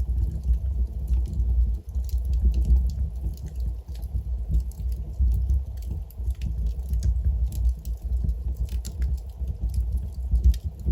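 Wood logs burning in a fireplace: a steady low rumble of the flames with frequent irregular crackles and small pops.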